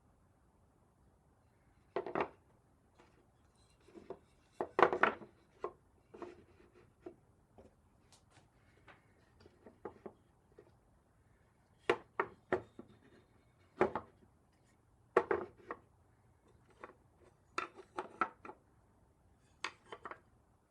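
Irregular knocks and clatters of wooden pieces being handled, set down and fitted together by hand, some single and some in quick clusters, with quiet between.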